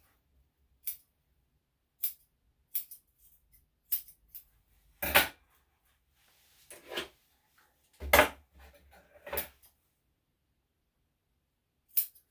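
Grooming scissors snipping the fur around a small dog's paw: about a dozen short, sharp snips at irregular intervals, with two louder, heavier clicks about five and eight seconds in.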